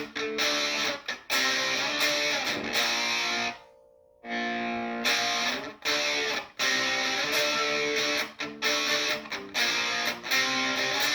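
Electric guitar chords played on the bridge pickup of an Epiphone SG Modern Figured through an amplifier, struck again and again with short gaps between them, with a brief break about four seconds in.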